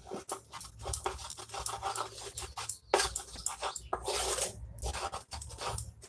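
A spatula scraping and knocking rapidly against a metal pan, clearing out leftover cooked dal batter, with a short break about three seconds in.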